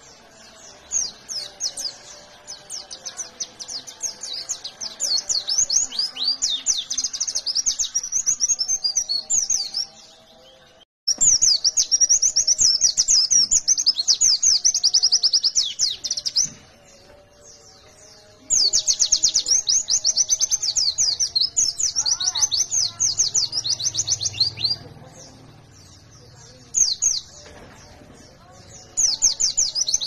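White-eye (pleci) singing fast, shrill chirping song in several long bursts, each several seconds long, with short pauses between them.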